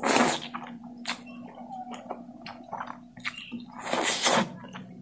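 Noodles in chilli oil sauce slurped into the mouth twice: a short slurp at the start and a longer one about three and a half seconds in, with small wet mouth clicks between.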